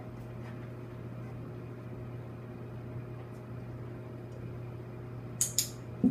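Steady low hum with an even hiss, like a running appliance or fan. Two or three sharp clicks come close together about five and a half seconds in.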